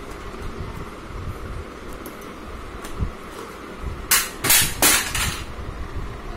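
A quick run of about four hand claps by a small child, a little over four seconds in, over a steady low background hum.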